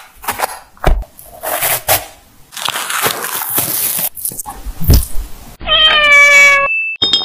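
Pomelo peel being cut and pulled apart: a run of short, crisp crackles and scrapes. Near the end a cat meows once, loudly, for about a second, its pitch falling slightly.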